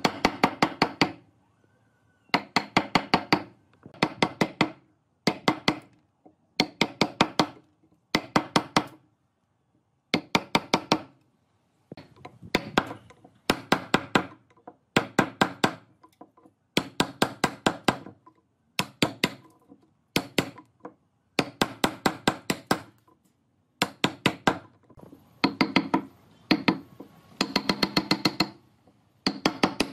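A steel chisel struck with rapid hammer blows, chopping out the waste between saw kerfs in a block of wood. The blows come in bursts of about five or six quick knocks, with a short pause between bursts.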